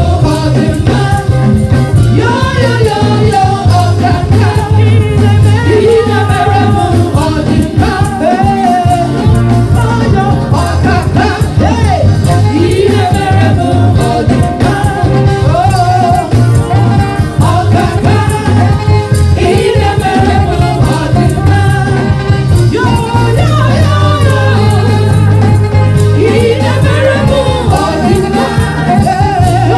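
Gospel praise-and-worship singing by a group of women vocalists on microphones, over amplified music with a steady bass line.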